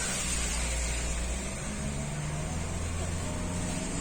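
A vehicle engine running steadily at low revs, a continuous low hum with no sharp events.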